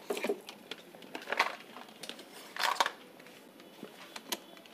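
Clicks and light clatter of hard objects being handled, with a few short rattling bursts among scattered ticks.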